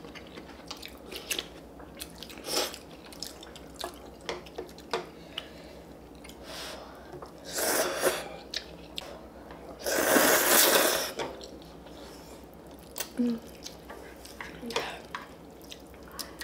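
Eating sounds: chewing with many small clicks and taps, and two long, loud slurps of ramen noodles, the second the loudest.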